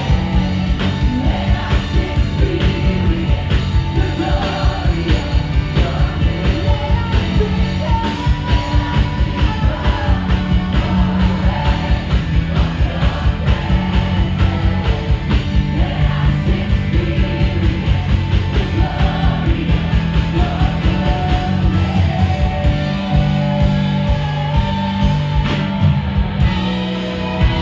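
Live worship band playing an upbeat song: several singers over guitar, bass and a fast, steady drum beat.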